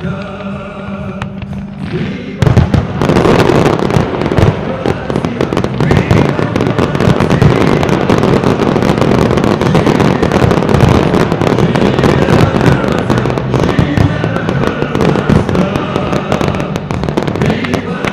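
Fireworks display: a dense, continuous barrage of rapid bangs and crackles begins about two seconds in and keeps going almost to the end, over pyromusical music.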